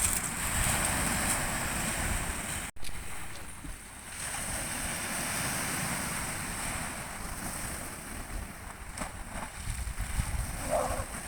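Black Sea waves washing onto the shore in a steady surf, with wind buffeting the microphone. The sound drops out abruptly for an instant nearly three seconds in.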